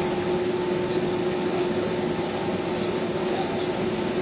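Boeing 767-300ER jet engines heard from inside the cabin: a steady rushing noise with a constant hum running through it.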